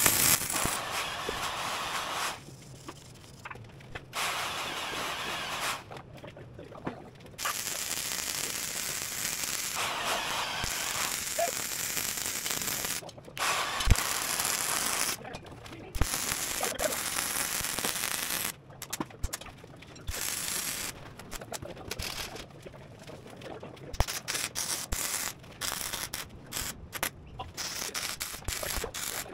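MIG welding arc crackling on steel frame plates, stopping and restarting. There are a few long beads in the first half, then short stop-start bursts of welding toward the end.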